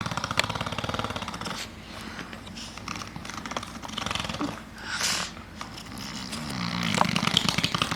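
Toddler making buzzing fart noises, one long buzz at the start and another in the last two seconds, with a short breathy puff in between.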